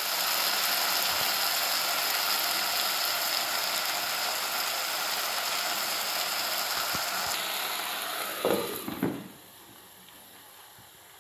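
Chicken pieces sizzling in a pot on a gas stove as the meat lets out its own water. About nine seconds in, after a few knocks, the sizzling drops away sharply to a faint hiss.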